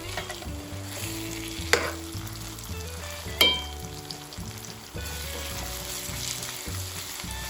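Ginger garlic paste sizzling in hot oil with fried onions, stirred in the pan. Two sharp clinks of the spoon against the pan, about two seconds in and again a second and a half later.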